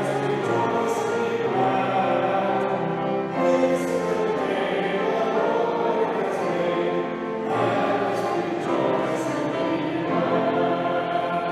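Choir singing a sacred song in sustained, long-held notes.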